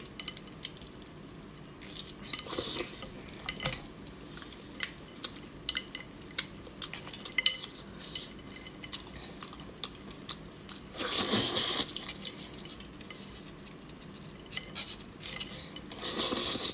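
Close-miked sounds of eating raw lobster: many small wet clicks and crackles as the shell and flesh are pulled apart by gloved hands, with two longer, louder slurps, one about eleven seconds in and one at the end.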